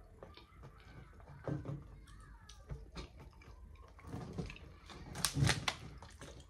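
Small clicks and taps of a plastic fork in a foam takeout box and of eating, then a quick run of louder crinkling clicks about five seconds in as a plastic water bottle is picked up.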